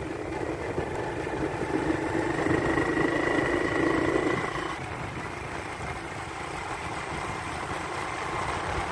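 Motorcycle engine running while riding. It pulls harder and rises slightly in pitch from about a second in, then eases off to a steadier, quieter run about halfway through.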